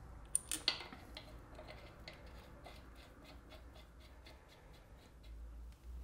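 Rear brake caliper mounting bolts being run in by hand with a small tool: a few metallic clicks in the first second, then faint ticking about three times a second.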